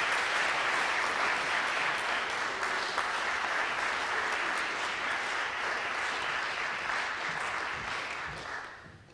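Audience applauding, a steady round of clapping that fades out near the end.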